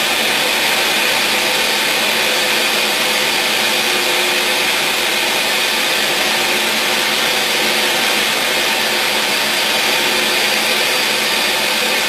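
Ninja countertop blender running steadily and loudly, blending whole lemons with liquid into a milky purée.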